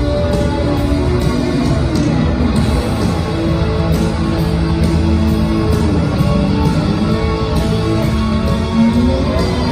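Live rock band playing a loud instrumental passage: electric guitars with held notes over bass and drums, one note sliding upward near the end.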